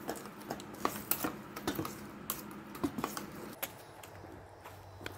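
Wire whisk clicking and tapping irregularly against a stainless steel mixing bowl as it stirs thin rice-flour batter, for about three and a half seconds. A low steady hum follows near the end.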